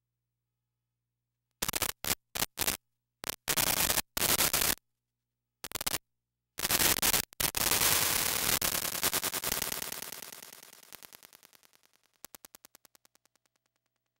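Harsh static noise cutting in and out abruptly in several short bursts. A long burst follows and fades away over several seconds, breaking into a rapid stutter as it dies: an audio glitch on an otherwise silent track.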